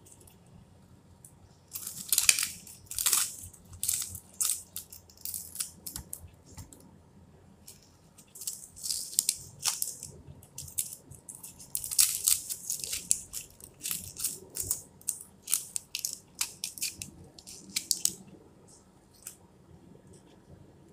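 Red onion being peeled and trimmed with a knife: the dry papery skin gives irregular crisp crackles and rasps, starting about two seconds in, thickest in the middle and thinning out a few seconds before the end.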